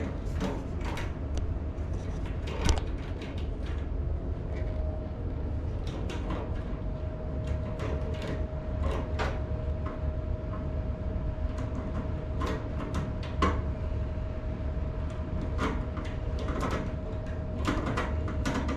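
Scattered clicks, taps and scrapes of tools and copper pipe being handled during a SharkBite pipe repair, over a steady low hum with a faint steady whine from about five seconds in.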